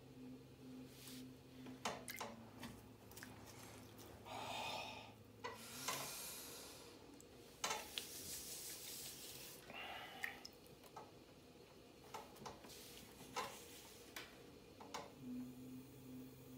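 Wet hands working clay on a spinning potter's wheel: soft squelching and splashing of water and slip, with scattered clicks.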